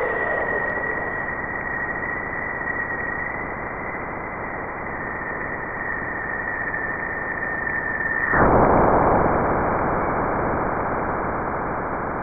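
Sonified radio-wave data from NASA's Juno spacecraft (Waves instrument) at Jupiter, sounding like a badly tuned radio and white noise. A steady high whistle of upstream plasma oscillations rides over hiss; about eight seconds in, the whistle cuts off and a louder rush of noise takes over and slowly fades as Juno crosses Jupiter's bow shock.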